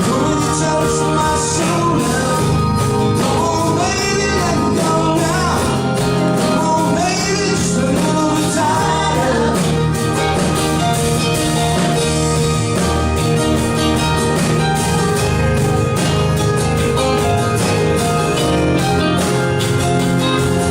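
Live rock band playing a song, with a singer's voice over guitar and a steady drum beat for about the first ten seconds, then the band plays on without the voice.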